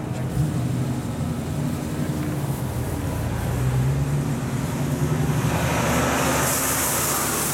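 Dodge Challenger widebody's Hemi V8 running at low revs as the car drives off slowly, its note rising a little a few seconds in. A hiss builds near the end.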